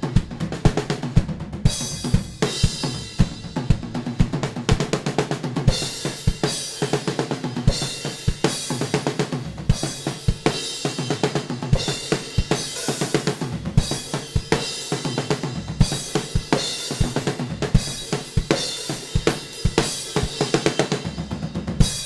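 Drum kit playing a fast, busy rhythm of bass drum and snare hits with cymbals washing over them.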